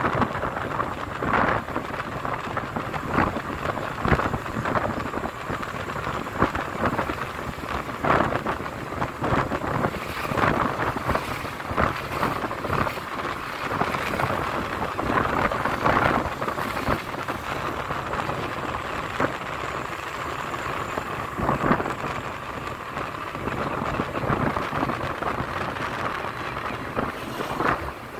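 Rushing noise from riding a motorbike: air buffeting the microphone with frequent irregular thumps and gusts.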